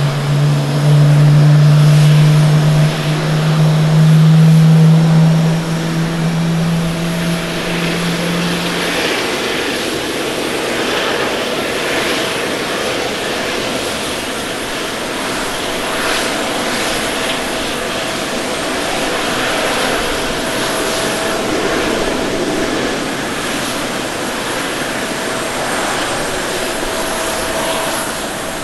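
Jet airliner engines at takeoff power. First a Boeing 787-9 climbing away, a loud steady low drone that ends about nine seconds in. Then an Airbus A350-941's Rolls-Royce Trent XWB engines on the takeoff roll, a steady rushing noise with a thin whine, carrying through to rotation near the end.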